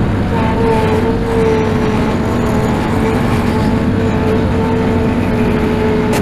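Engine running steadily with a held, slightly wavering pitch and no change in speed.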